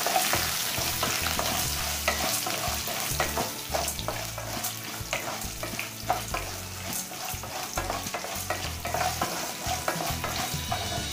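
Wooden spatula stirring a tempering of mustard seeds, dals, cashews and chillies frying in hot oil in a metal kadai. A steady sizzle runs throughout, with frequent light clicks and scrapes of the spatula against the pan.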